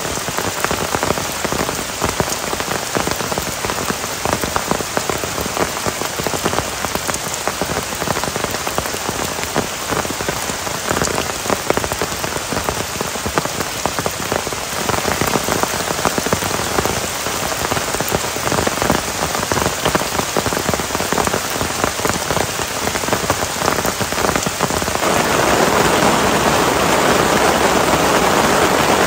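Heavy rain falling on tent fabric and forest foliage: a steady hiss with many separate drop hits. About 25 seconds in it turns to a louder, denser, even rush.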